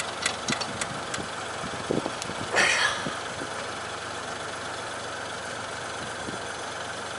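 Car engine idling steadily, with a few light clicks in the first second and a short hiss about two and a half seconds in, as a fitting is worked onto the air-conditioning service port.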